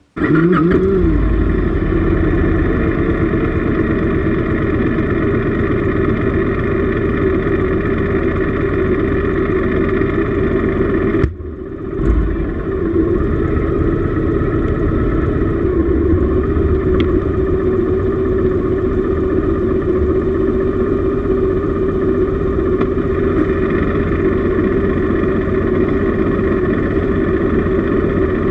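Motorcycle engine starting up abruptly with a short rev, then running steadily as the bike rolls into a car-wash bay. The sound dips briefly about eleven seconds in and then picks back up.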